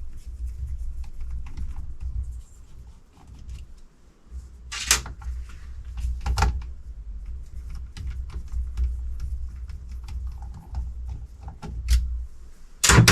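Small clicks and taps of hands and tools handling the parts of an electric supercharger being taken apart, with a few sharper knocks, the loudest near the end.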